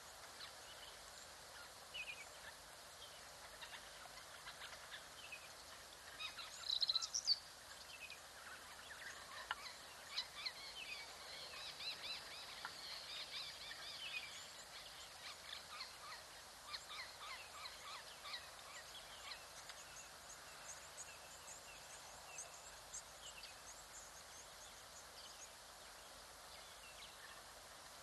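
Wild birds chirping and calling in the bush: many short chirps and trills over a faint steady hiss, with a louder burst of calls about seven seconds in and a busy stretch of chirping in the middle.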